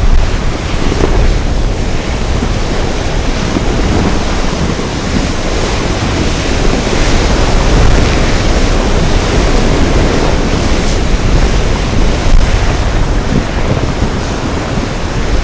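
Steady rush of ocean waves heard from a boat on open water, with heavy wind buffeting the microphone.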